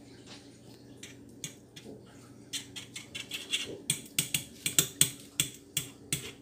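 Metal fork clicking against a stainless frying pan in quick repeated strokes, about four or five sharp clicks a second. The clicks start about two and a half seconds in and grow louder from about four seconds in.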